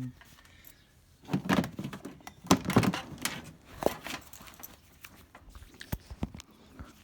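Handling noise while plugging an appliance's cord into an extension cord: a string of irregular clicks, knocks and rattles, the busiest about a second or two in.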